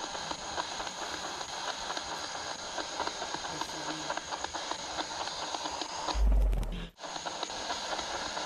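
Spirit box scanning through radio stations: a steady hiss of static broken by rapid clicks, with a short faint fragment about four seconds in that the ghost-hunter reads as a voice saying "disini" ("here"). About six seconds in there is a brief louder, deeper burst, then the sound cuts out for a moment.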